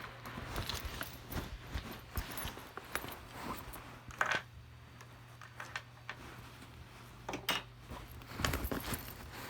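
Keys jangling and being handled: scattered small clicks and rustles over a steady low hum.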